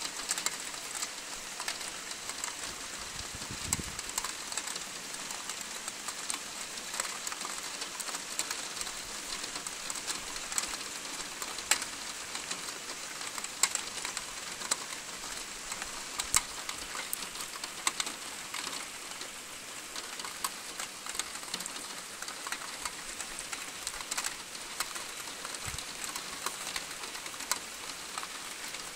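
Steady rainfall: an even hiss with many distinct drops ticking on a surface.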